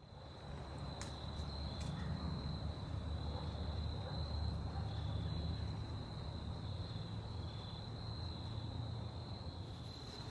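Insects trilling steadily at a high pitch in autumn woods, over a low steady rumble, with a couple of faint clicks in the first two seconds.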